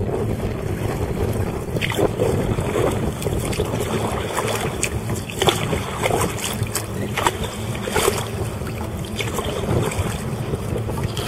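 Wind rumbling on the microphone over choppy water around a sea kayak, with short splashes every second or so as the paddle dips in.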